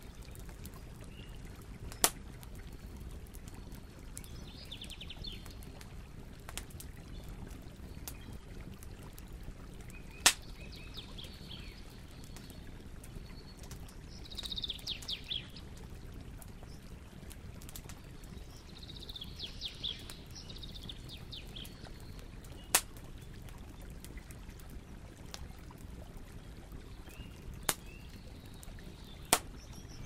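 Bonfire of logs burning with a steady low rush and sharp, loud pops of wood, five of them spread through. Four short bursts of rapid, high-pitched ticking come in between the pops.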